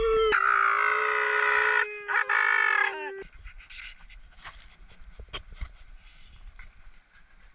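Siberian husky howling: one long, steady howl with a short break about two seconds in, cutting off about three seconds in. It is followed by faint snuffling and clicks as the dog sniffs up close.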